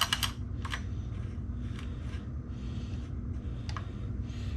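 Handling noise on the chainsaw: a quick cluster of clicks at the start, then a few scattered light taps about a second apart, over a steady low hum.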